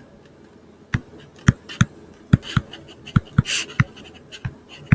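A stylus tapping and scratching on a tablet screen during handwriting: a run of irregular sharp ticks, with a short scratchy stroke about three and a half seconds in.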